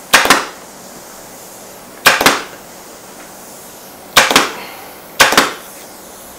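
Pneumatic upholstery staple gun firing four times, each shot a sharp double snap, driving staples through the top of the foam seat into the wooden chair frame.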